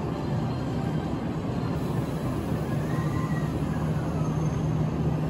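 Kintetsu 8A series electric train standing at the platform: a steady low hum from its running onboard equipment.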